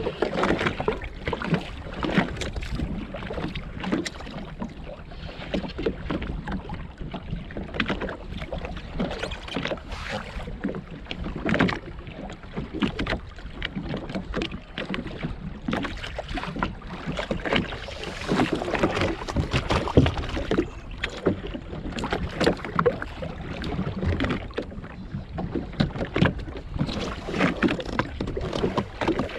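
Small waves slapping and sloshing unevenly against the hull of a drifting Sea-Doo GTX jetski.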